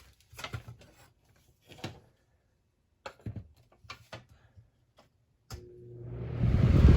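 A few scattered clicks and knocks, then about five and a half seconds in an Air King 9900 filter box fan with a replacement motor is switched on: the motor hums and the rush of air builds quickly as the blades spin up.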